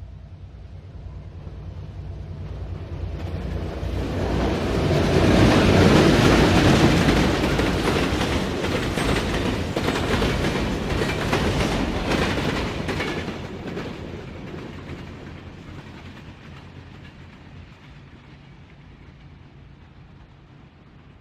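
Short freight train passing by: a low engine hum approaches and grows loudest about six seconds in, then the wagons' wheels clatter over the rail joints. The sound then fades away steadily as the train recedes.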